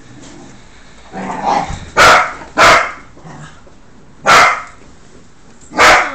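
Dog barking: four loud, sharp barks, the first two close together and the other two more widely spaced, after a quieter, rougher sound just before them.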